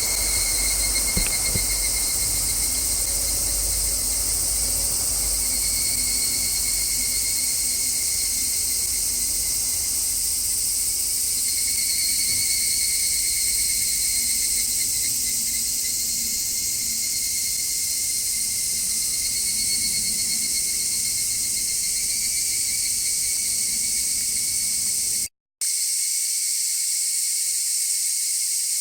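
Cicadas singing in a continuous high-pitched drone, with a low rumble of distant car traffic underneath. About 25 seconds in, the sound cuts out for a moment and returns as the same cicada song with the low rumble stripped away by an equalizer low cut.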